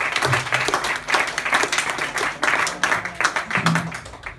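Audience applauding a finished song: dense clapping that thins out toward the end.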